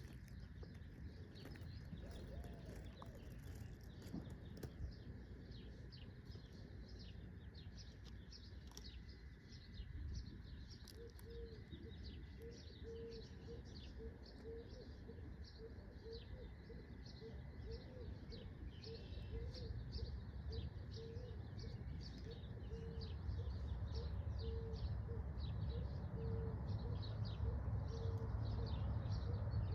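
Birds chirping steadily, with many short high notes. From about a third of the way in, a lower call repeats about once a second. A low rumble grows louder toward the end.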